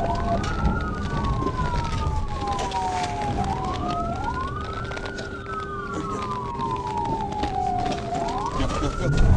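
Police car siren on a slow wail, its pitch rising and falling about every four seconds, with two sweeps slightly out of step, over the patrol car's engine and road noise.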